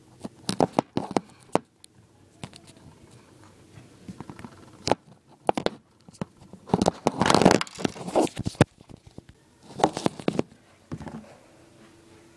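Handling noise on the recording device: hands fumbling with it right at its microphone, making irregular clicks, knocks and scraping rustles, with a louder stretch of rustling about halfway through.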